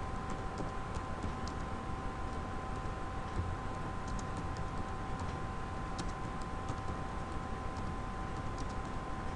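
Keystrokes on a computer keyboard: light clicks at irregular intervals as a message is typed. Under them runs a steady hiss with two constant tones.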